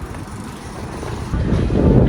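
Wind buffeting the microphone: a rough, rumbling noise that swells loudly about a second and a half in.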